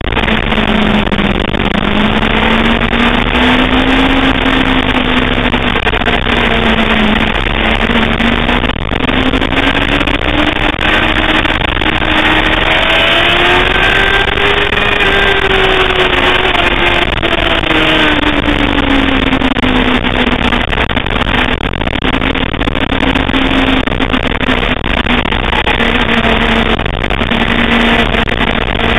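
Sportbike engine heard onboard at track speed, under a steady rush of noise. The engine pitch wavers, climbs slowly to a peak about halfway through, then falls away gradually.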